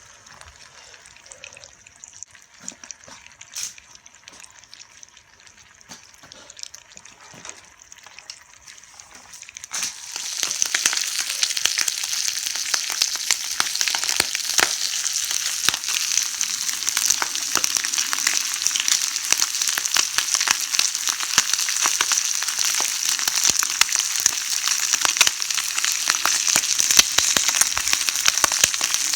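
Bacon frying in a pan over a campfire, sizzling and spitting with fine crackles. About ten seconds in the sizzling suddenly becomes much louder and stays loud.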